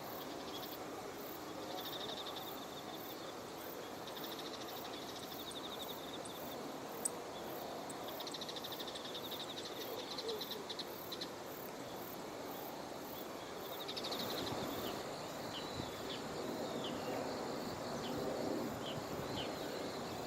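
Insects trilling in repeated high-pitched bursts over a steady outdoor background noise, with short bird chirps joining in during the second half.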